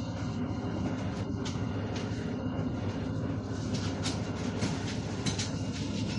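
PAZ 320435-04 bus running, heard from inside the passenger cabin: a steady low drone with scattered short clicks and rattles.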